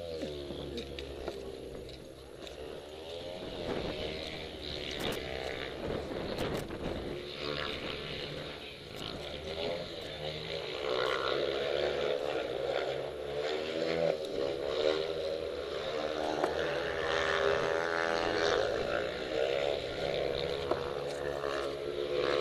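500cc single-cylinder speedway motorcycle engines running, their pitch rising and falling unevenly as they are revved, with more than one engine note overlapping in the second half.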